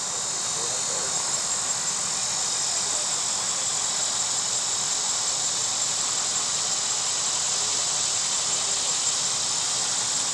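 A steady, high-pitched chorus of insects singing.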